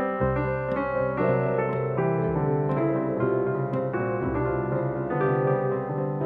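Background music: a keyboard tune of evenly struck notes over a bass line that changes about every two seconds.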